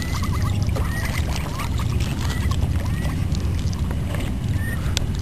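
Ducklings peeping in short, high calls scattered throughout, over a steady low rushing background noise.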